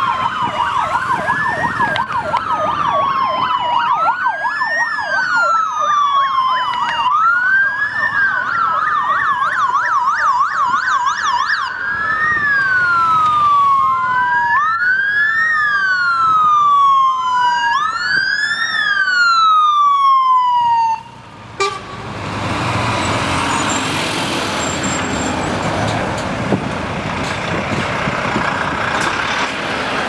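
Sirens of a police motorcycle escort, several at once: a wail rising and falling every couple of seconds over a fast yelp. About two-thirds of the way through they stop abruptly, and the steady running noise of heavy lorries passing takes over.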